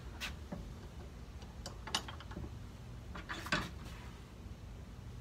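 A few scattered metal clicks and clunks as a part is set and clamped in a steel bench vise and gear is handled, the loudest knock about three and a half seconds in.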